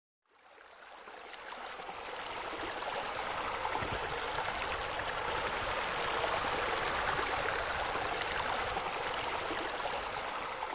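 Steady rush of water from a spa spillover cascading into a swimming pool, fading in over the first couple of seconds.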